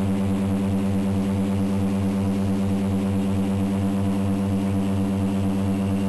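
Twin Otter's two PT6A turboprop engines and propellers heard from inside the cockpit: a loud, steady, low drone with a regular pulsing beat, at power during the descent to a float landing.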